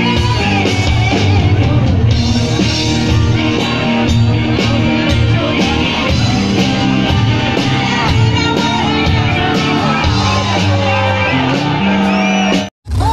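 Live rock band playing, with electric guitars and a singer singing into a microphone, heard loud through the stage speakers. The sound cuts out abruptly for a moment near the end.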